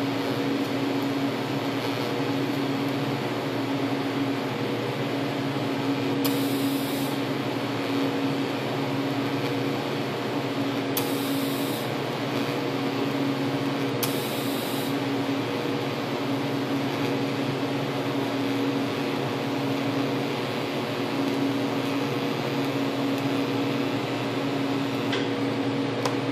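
TIG welder running at around 120 amps while an arc fuses and fills the corner joint of an 11-gauge steel box, a steady electric hum. A brief hiss rises above it three times.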